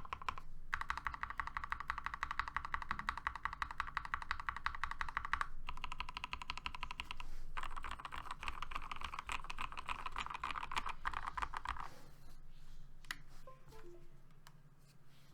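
Keychron K8 mechanical keyboard with hand-lubed Momoka Frog switches and PBT doubleshot keycaps being typed on fast, a quick run of keystrokes with two brief pauses. The typing stops about twelve seconds in, leaving a few scattered key presses.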